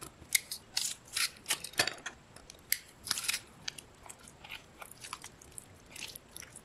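A garlic press crushing garlic cloves into a ceramic bowl, then a spoon stirring thick gochujang-and-chili-flake seasoning paste: irregular clicks, scrapes and squishes of the spoon against the bowl, busier in the first half and lighter later.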